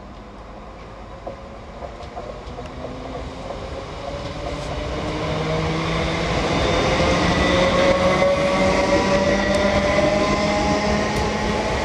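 Class 321 electric multiple unit running past close by: wheels rumbling on the rails under a whine of several steady tones, growing louder to a peak about eight seconds in.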